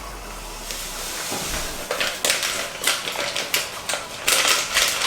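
A run of quick, crisp crinkling rustles and ticks, starting about two seconds in, as a packet of Jello gelatin powder is handled and poured out.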